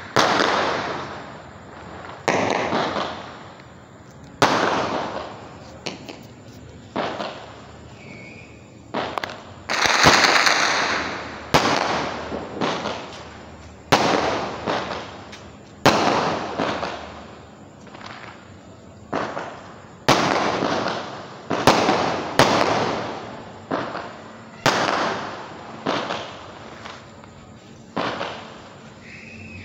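Aerial fireworks exploding: a string of sharp bangs, about one every one to two seconds, each fading out over about a second.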